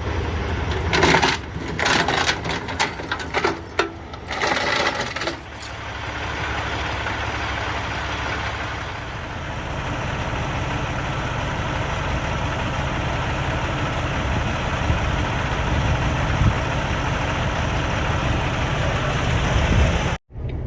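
Metal tire chains clinking and clanking as they are handled and thrown onto a semi truck's tires, for about the first five seconds. After that comes a steady low rumble of the idling diesel truck.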